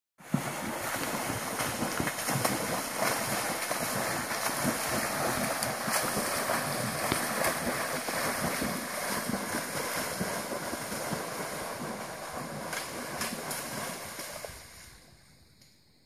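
Chimpanzee splashing and thrashing in shallow water, a continuous churning noise with many sharp slaps, dying away near the end.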